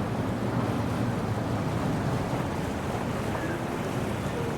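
Steady wind buffeting a helmet-mounted 360 camera's microphone, a low rumbling hiss that stays even throughout.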